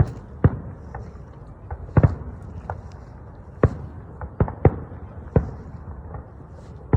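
Fireworks display bursting: six or seven sharp bangs at uneven gaps over a steady low rumble, with two coming close together in the middle.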